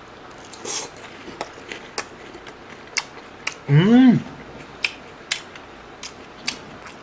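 Close-up chewing of a fried breaded pork cutlet: a run of crisp crunching clicks. About four seconds in comes a short hummed "mmm" of enjoyment, rising then falling in pitch, the loudest sound.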